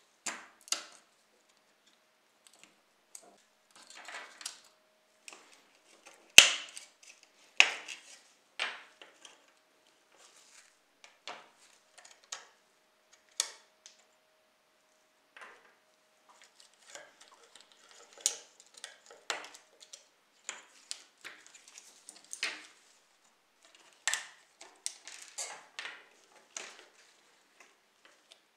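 Small metal tools clicking, tapping and scraping on the metal and plastic parts of a diecast model car as it is taken apart, in scattered irregular clinks with a few short scrapes; the sharpest clink comes about six seconds in.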